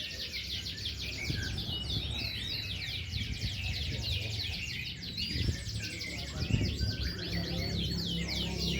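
Many caged canaries singing at once in a dense, unbroken stream of rapid trills and chirps.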